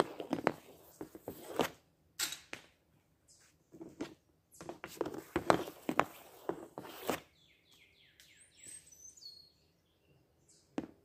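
Ice hockey stick blade clacking against pucks and scraping across a shooting pad as pucks are handled and shot, a quick run of sharp clicks and scrapes through the first seven seconds. A bird chirps about eight seconds in, and there is one more sharp click near the end.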